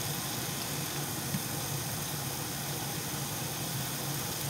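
Steady hiss of hamburger patties frying in a pan, over the low hum of a range hood fan running on its low setting. One brief tap about a second and a half in.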